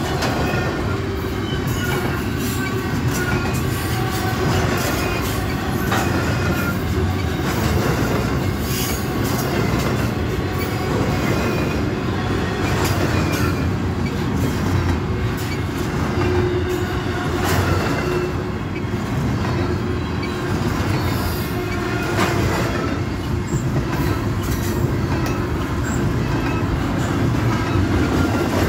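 Freight train rolling past at close range: a steady rumble of cars going by, with scattered clicks of wheels over rail joints and brief faint squeals from the wheels.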